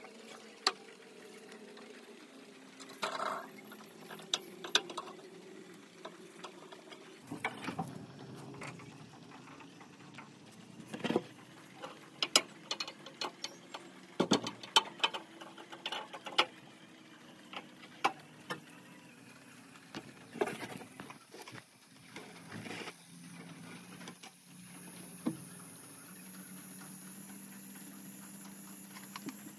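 Irregular clicks, taps and scrapes of hand work with small tools, in scattered bursts. Near the end a steady high hiss starts.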